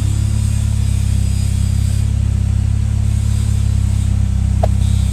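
A motor vehicle's engine running steadily, a low, even drone, with a brief squeak about four and a half seconds in.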